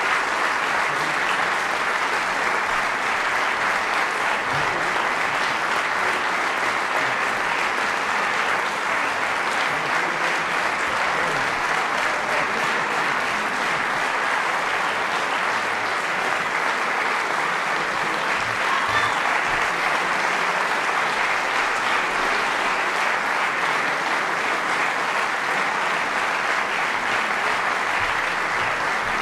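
A concert hall audience applauding steadily after a performance, a dense, unbroken clapping with no let-up.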